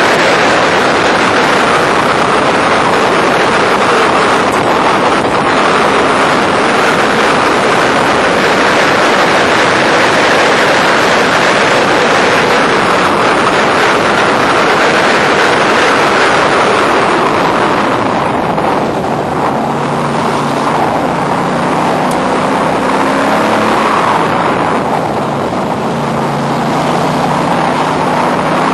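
Wind rushing over the open cockpit of a Factory Five race car at speed, mixed with the engine under load. Past the middle the wind eases as the car slows for a corner, and the engine's steady note comes through more plainly.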